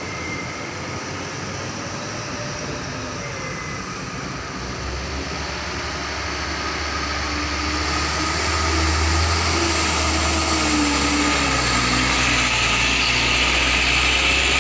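Light diesel truck engine running as the truck drives past close by, growing steadily louder from about a third of the way in.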